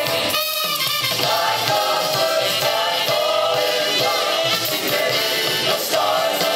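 Recorded show music with singing voices playing continuously, as accompaniment for a color guard routine.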